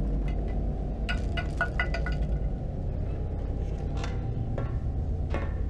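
Scattered light clinks and taps of glass and small objects being knocked about on a cluttered desk, in two clusters about a second in and again near the end, over a low steady drone.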